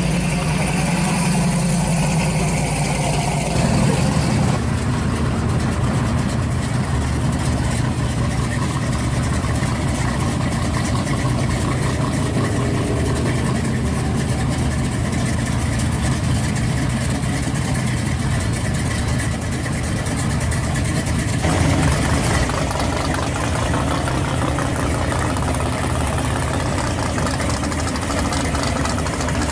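Modified muscle-car and lowered pickup engines idling and rumbling as the cars pull slowly away one after another. The sound changes abruptly about 4 seconds and about 21 seconds in, as one car gives way to the next.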